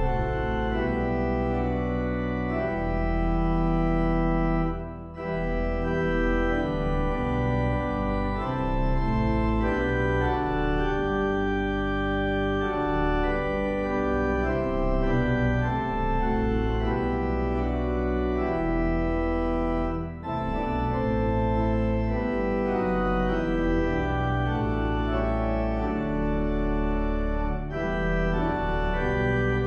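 Organ music playing held chords, with short breaks between phrases about 5 and 20 seconds in.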